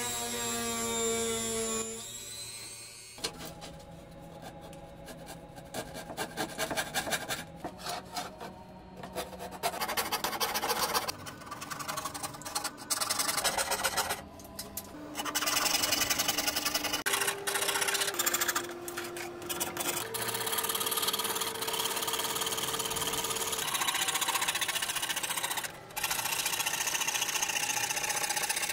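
Woodworking power tool motor running while cutting and shaping wood, its hum shifting in pitch in steps, with stretches of rasping strokes on wood.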